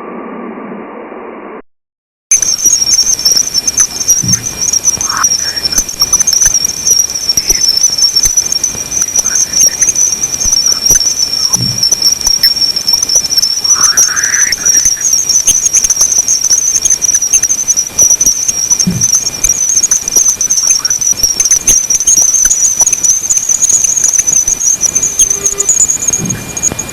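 Sonified spacecraft plasma-wave data from Jupiter's bow shock: a loud, dense, hissing noise with a strong high band and a faint thin steady tone. A few short rising chirps sound through it. It starts about two seconds in, after a moment of silence.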